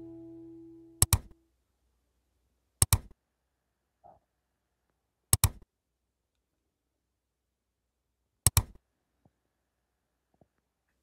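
Four camera shutter clicks, each a quick double click, spaced a couple of seconds apart against silence, the first about a second in. The tail of background music fades out just before the first click.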